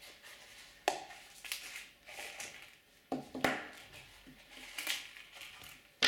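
Hands handling a nylon multi-tool sheath and its contents: fabric rustling with a few sharp clicks and knocks, the loudest about three seconds in, as the sheath is opened and the tool and bit set are taken out and set down.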